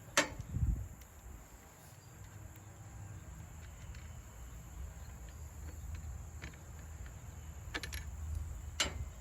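A few sharp metallic clicks as the nut, washer and steel blade come off the edger's blade shaft, over a steady high insect drone and low background rumble.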